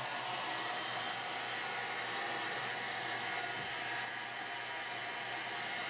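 Handheld hair dryer running steadily, blowing air to dry a dog's wet fur.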